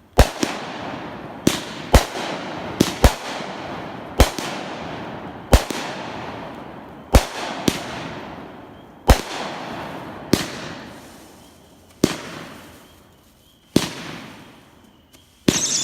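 World Class "Graffiti" 200-gram aerial firework cake firing: sharp bangs of launches and bursts about every one to two seconds, each trailing off in a fading hiss and crackle. Near the end a loud high whistle starts, falling in pitch.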